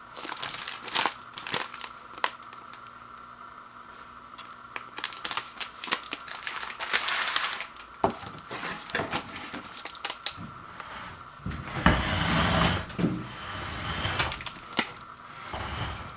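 Popcorn box packaging being handled and opened: crinkling and tearing with scattered sharp clicks and taps, and a longer, louder rustle near the end.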